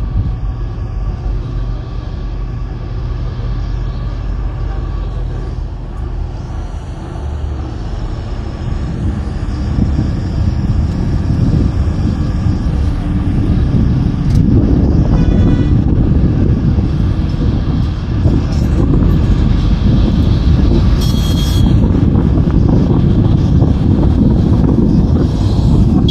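Interior ride noise of an MSRTC state-transport bus under way: steady engine and road rumble with wind through an open window, getting louder about a third of the way in. Two brief high-pitched tones sound about halfway through and again a few seconds later.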